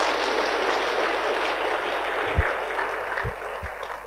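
A large audience applauding steadily, the clapping fading away near the end. A few dull low thumps sound in the middle, the loudest about halfway through.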